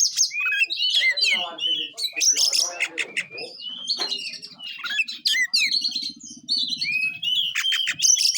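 Oriental magpie-robin (kacer) singing a fast, varied song of whistled slurs, chirps and rapid runs of notes, with hardly a pause.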